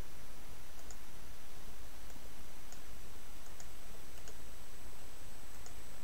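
Faint computer mouse clicks, about six scattered over a few seconds, over a steady low hum and hiss.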